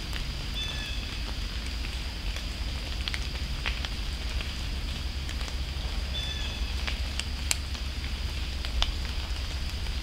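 Scattered ticks and crackles in dry oak-leaf litter, acorns dropping from the oaks and wild turkeys scratching and stepping through the leaves, like light rain pattering. Beneath it runs a steady low wind rumble, and a short high chirp comes twice.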